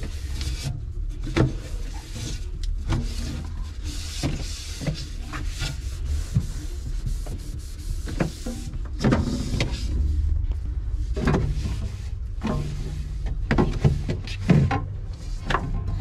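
Cloth wiping and rubbing against the plastic walls and shelves inside a refrigerator, in long strokes, with scattered light knocks and bumps from handling and a steady low hum underneath.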